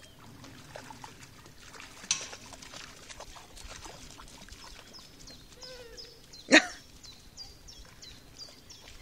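A dog barks once, sharply and loudly, about two-thirds of the way through, over faint splashing of water. Faint high chirps repeat in the second half.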